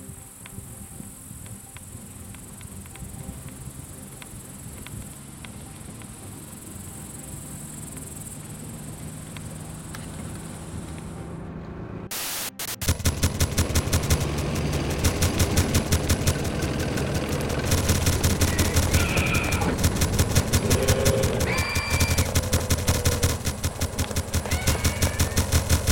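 For roughly the first twelve seconds, a steady quiet hiss with a high, thin hiss above it. Then, about halfway through, rapid automatic machine-gun fire starts suddenly and keeps going in dense repeated bursts over a low rumble.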